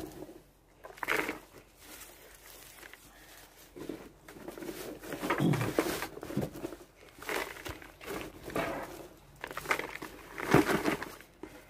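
Tree-bark potting mix rustling and crunching in irregular bursts as hands scoop it up and press it into a plastic pot among cymbidium orchid roots, with a few sharp knocks.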